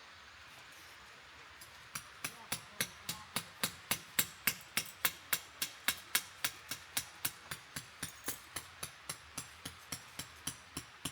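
Rapid, evenly paced hammer strikes, about four a second, starting about two seconds in: a tent stake being driven into the ground.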